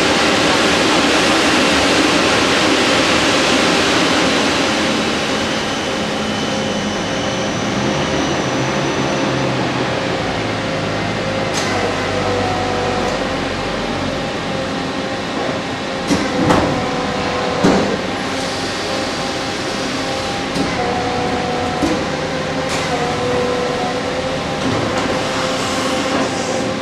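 Victor Taichung Vturn-V24W vertical turning center cutting a wheel. Steady machine noise with a strong hiss and a held cutting tone, broken by a few sharp knocks, the loudest about two-thirds of the way through.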